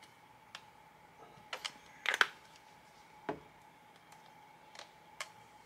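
A handful of light, sharp clicks and taps from small craft pieces being handled on a plastic cutting mat, the loudest a quick pair about two seconds in, over a faint steady hum.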